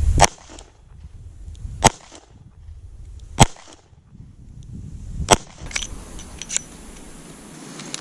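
Smith & Wesson Model 60 stainless-steel five-shot J-frame revolver fired four times, about one and a half to two seconds apart, followed by a few lighter clicks.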